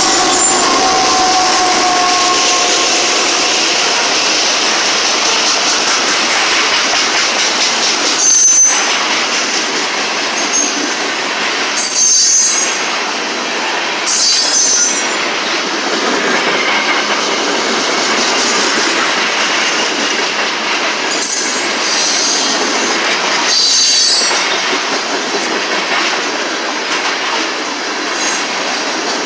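Loaded CSX freight train's covered hopper cars rolling past close by: a steady rumble and clatter of wheels on rail, broken about five times by brief high-pitched wheel squeals. The locomotive's horn trails off in the first second or two.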